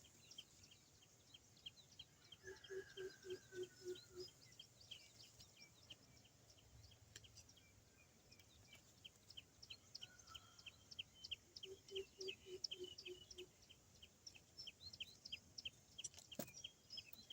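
Greater coucal's deep hooting call, a faint run of about six low, evenly spaced hoots, heard twice, over a steady run of rapid high chirps.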